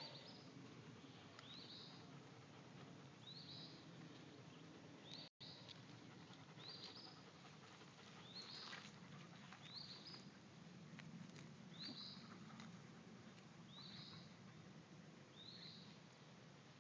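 A bird chirping faintly outdoors: a short, high rising note repeated about every one to two seconds, over a quiet background hum.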